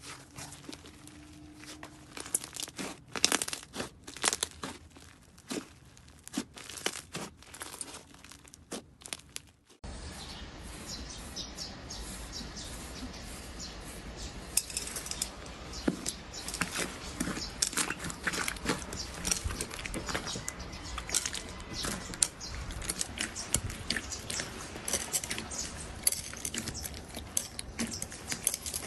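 Hands stretching and pressing slime, making crackling, tearing and popping clicks. About ten seconds in, the sound changes abruptly to a denser, steadier crackle as hands press a softer slime in a bowl.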